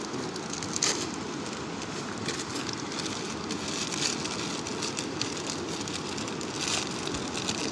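Twigs burning in a small folding wood-burning camp stove under a pan of water, giving scattered crackles and pops over a steady rushing noise.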